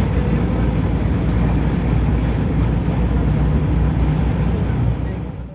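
Steady low rumbling noise, heaviest in the deep lows, that fades and cuts off near the end.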